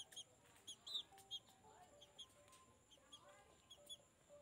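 Faint, repeated short high-pitched bird chirps, several a second and uneven, with quieter short lower tones underneath.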